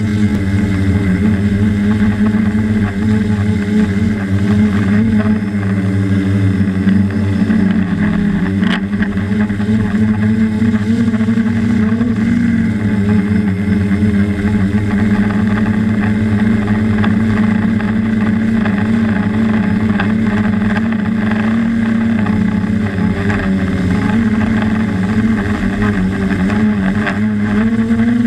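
Quadcopter's electric motors and propellers buzzing steadily, recorded from on board, the pitch rising and falling slightly as the throttle changes.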